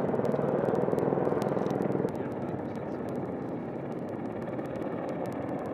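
Steady helicopter engine and rotor noise with faint clicks over it. It gets somewhat quieter about two seconds in.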